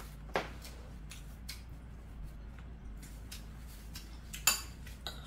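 Metal spoon and chopsticks clinking and tapping against ceramic bowls while eating: a few short sharp clicks, the loudest near the end.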